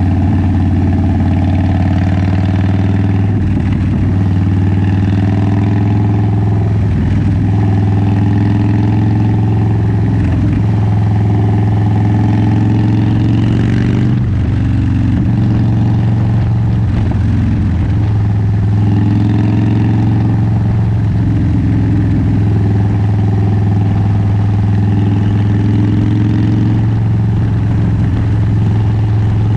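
Cruiser motorcycle's engine and exhaust running steadily while riding at town speed, heard close up from the rear of the bike; the engine note briefly shifts a few times.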